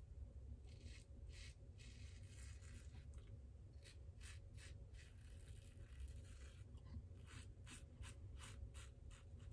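Faint short scraping strokes of a Supply single-edge injector razor cutting stubble through shaving lather. A few spaced strokes at first, then a quicker run of about three strokes a second near the end.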